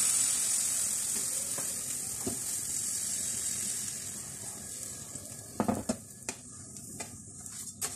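Spinach pancake batter sizzling in hot oil in a non-stick frying pan. The sizzle is loud at first and slowly dies down, and from about five seconds in a spatula scrapes and taps sharply against the pan a few times.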